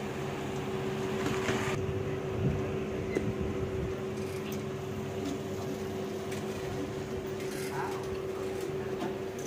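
A steady mechanical hum holding one constant pitch, over a light background hiss with a few faint ticks.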